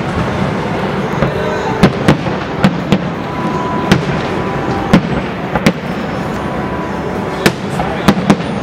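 Aerial fireworks bursting over a city, an irregular series of about a dozen sharp bangs echoing over a steady background hubbub.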